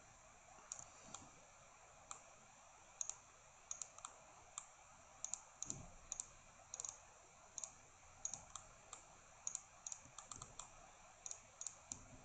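Faint computer mouse clicks, about thirty at irregular spacing, some in quick pairs like double-clicks.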